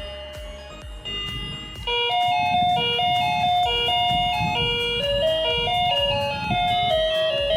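Electronic doorbell chime playing one of its ringtone tunes: a melody of plain electronic tones stepping up and down in pitch, starting about two seconds in after a held note fades. Background music with a steady beat runs underneath.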